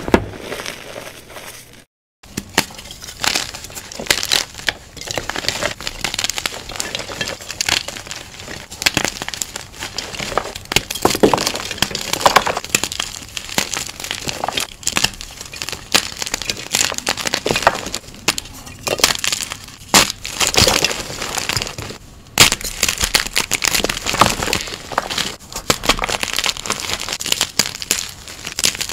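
Blocks of gym chalk crushed and snapped between fingers: dense, crisp crunching and crackling with many sharp cracks. About two seconds in there is a brief silence, and the softer squeezing of powdery chalk gives way to it.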